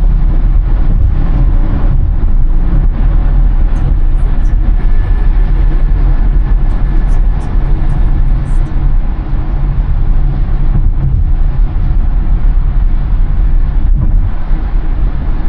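Steady road and wind noise inside a 2023 Tesla Model Y cruising at freeway speed, mostly a low rumble. The car is electric, so there is no engine note.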